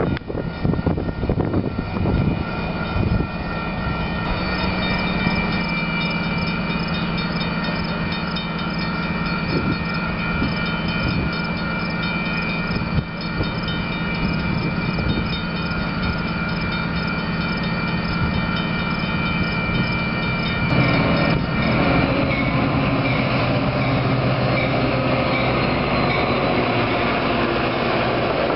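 Grade-crossing warning bells ringing rapidly over the hum of an approaching Metra F40PH diesel locomotive. About two-thirds of the way through, the locomotive and its bilevel passenger cars roll past, and the steel wheels on the rails turn the sound into a broad rumble.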